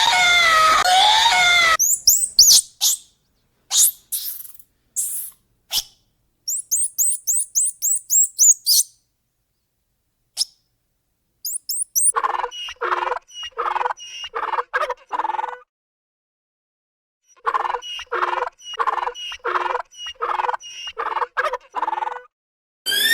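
A string of separate animal calls. First come high bird chirps and quick descending twitters. Then two runs of a repeated call, about three a second.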